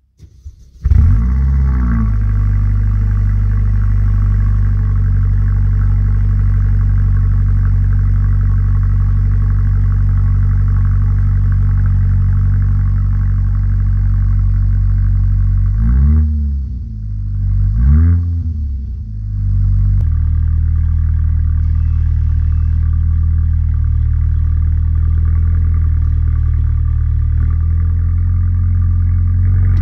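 2017 Mercedes A45 AMG's 2.0-litre turbocharged four-cylinder cold-starting at −20 °C: it catches with a loud flare about a second in and settles into a steady idle. About halfway through there are two quick revs that rise and fall, then it idles steadily again.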